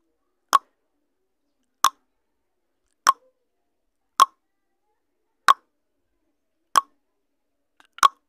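Countdown timer sound effect: a short click on each passing second of the count, seven times, evenly spaced a little over a second apart.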